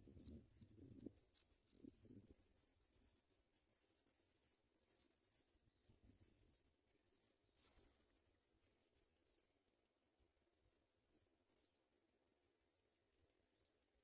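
African pipit nestlings begging: faint, rapid, high-pitched cheeping several times a second that breaks off about halfway through, returns in two short bursts, then stops. A few soft low rustles in the first couple of seconds.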